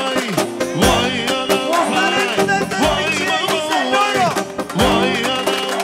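Turkish folk-dance music played by a band: a wavering, ornamented melody over steady drum beats.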